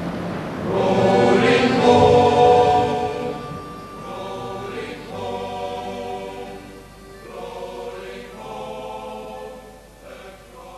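A choir singing a sea song with no words made out: a few long held chords, each phrase quieter than the last as the song fades out.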